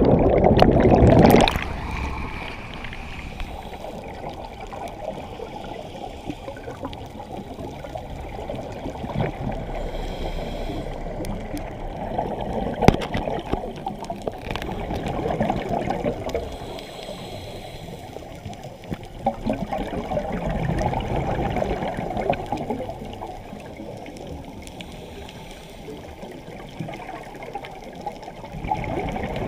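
Underwater sound through a diver's camera: a loud rush of churning water and bubbles in the first second and a half, then a steady muffled wash. Gurgling bubbles from the scuba regulator swell and fade every several seconds, with a few sharp clicks.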